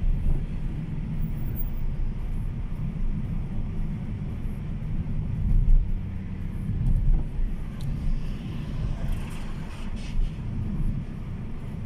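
Car engine and road noise heard from inside the cabin while driving: a steady low rumble with a faint engine hum. About eight seconds in, a brief swell of higher hiss rises over it.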